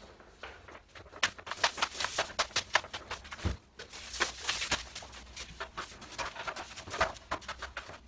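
2.5 mm twin-and-earth electrical cable being pulled off its reel by hand: a quick, irregular run of clicks and rustles of the plastic sheathing and drum, with a dull thump about three and a half seconds in and another near the end.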